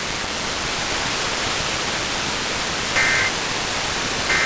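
Steady radio static hiss. About three seconds in come two short bursts of data tones, a little over a second apart: the Emergency Alert System's end-of-message (EOM) SAME code, which signals that the alert is over.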